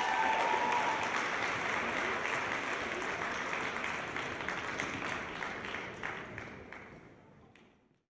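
Audience applauding the end of a gymnastics routine, a dense patter of many hands clapping that dies away and fades to silence near the end.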